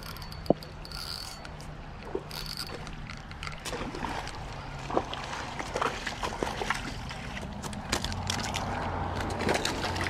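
A hooked ladyfish splashing and thrashing at the water surface as it is reeled in on a spinning rod, with scattered sharp ticks over a steady low rumble.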